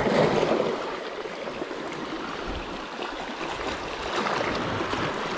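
Sea water splashing and sloshing close to the microphone as a small fish is released by hand, with a louder splash right at the start and then continuous lapping.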